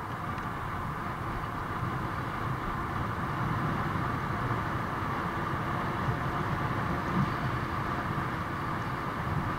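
Steady riding noise from a bicycle on pavement: tyre and drivetrain hum with a fluttering low rumble of wind on the microphone.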